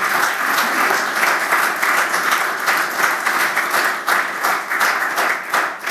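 Audience applauding: dense, steady clapping from many hands in a hall.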